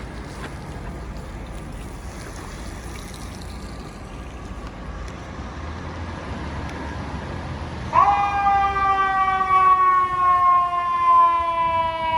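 A low, steady street-traffic rumble, then about eight seconds in a fire truck's air horn blasts loud and holds: a chord of several tones that sags slowly in pitch.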